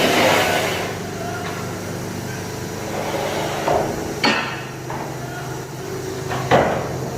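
A hammer striking metal in a few separate, irregular blows, the last near the end the loudest, over a low steady hum. A loud hissing noise dies away in the first second.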